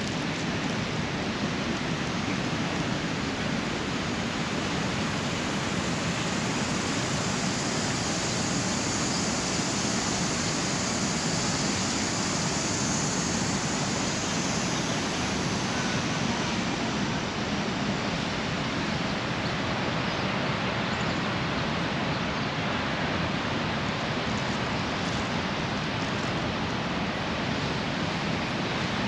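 Steady rushing of the Niagara River's water. It is an even, unbroken roar, and its hiss grows brighter for several seconds in the first half.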